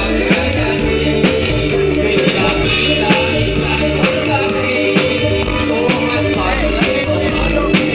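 Live jathilan dance music played loud: drum kit and cymbals keep a steady beat under repeated melodic notes.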